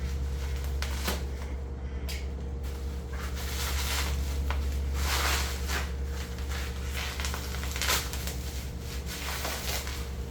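Packaging being rummaged through and rustled while parts are unpacked from a box, with a couple of sharp knocks, over a steady low electrical hum.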